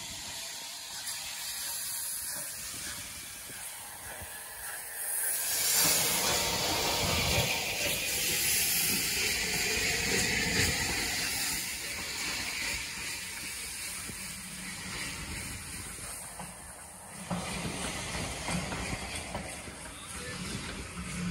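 Bulleid Battle of Britain class steam locomotive 34072 hissing steam as it moves off with its train, the hiss swelling much louder about five seconds in; after about 17 s the hiss falls back and the coaches roll past.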